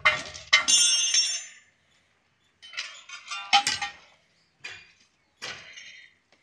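Steel tools clinking and clanging on a railway rail at a freshly made thermite weld, in a handful of irregular strikes. The biggest one comes just after the start and rings on in a high metallic tone for about a second.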